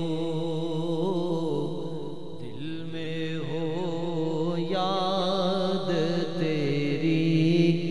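A male voice singing an Urdu naat unaccompanied: long, drawn-out ornamented notes with a strong wavering vibrato, held over a steady low drone.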